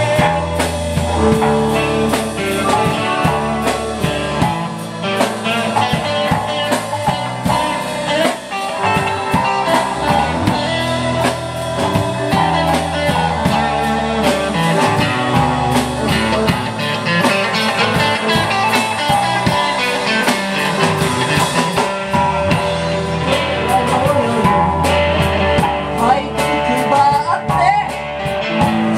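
Live rock band playing: electric guitars through amplifiers over a drum kit keeping a steady beat.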